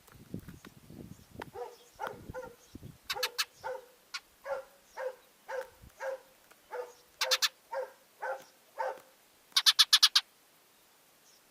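An animal calling in a steady series of short calls, about two a second. About ten seconds in there is a quick run of five sharper, louder calls.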